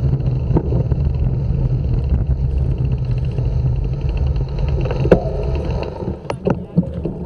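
Wind and road rumble on a bike-mounted action camera's microphone as the bicycle coasts slowly and nearly stops. A few sharp clicks come near the end.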